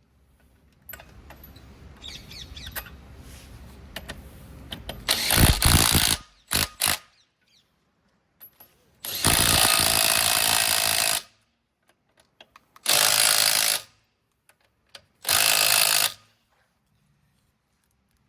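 Powered wrench running in a car's wheel bolts in bursts: a rising whirr with clicks for a few seconds, then three loud even bursts, the first about two seconds long and the others about one second each.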